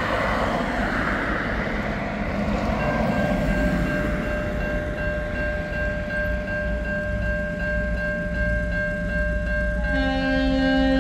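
TasRail DQ class diesel locomotive 2009 passing with a low engine rumble. About three seconds in, its horn starts a long, steady chord, warning at the road level crossing. Near the end a lower note joins the chord.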